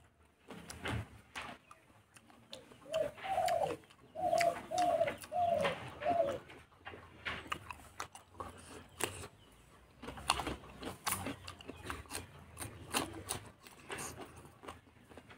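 Wet clicks and smacks of someone chewing fatty pork with rice throughout. A dove coos about four times in a row, each call dropping in pitch at the end, from about three to six and a half seconds in.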